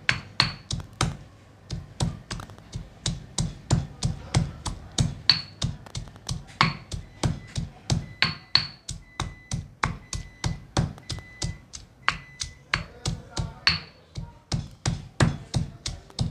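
Stone pestle pounding garlic in a granite mortar: steady, even strikes about three a second, crushing it coarsely.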